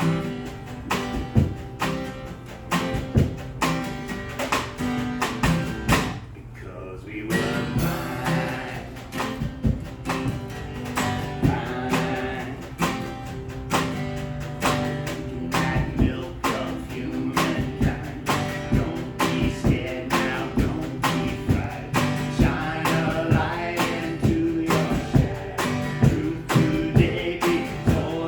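Guitar strummed in a steady rhythm, with a voice singing over it from about eight seconds in, after a brief drop in the playing.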